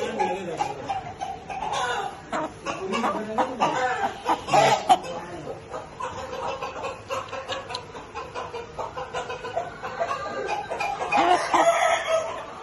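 Chickens clucking at intervals.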